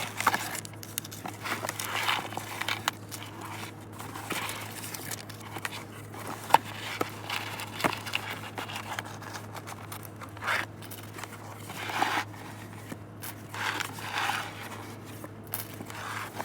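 Money being pulled out of a snack honor box: irregular rustling, scraping and crinkling, with a few sharp clicks.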